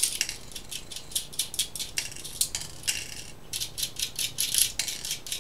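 Loosened small metal jack nuts being spun off their threads by a finger run across the aluminium front panel of a Eurorack module, making rapid, irregular light metallic clicking and rattling.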